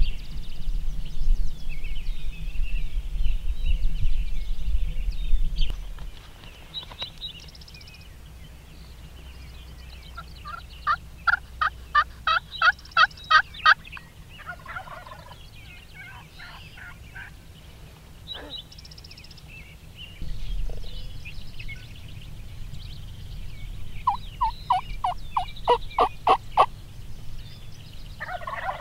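Roosted wild turkey gobblers gobbling: two gobbles, each a fast rattling run of about a dozen notes, the first about ten seconds in and the second near the end. Small birds chirp faintly in the background.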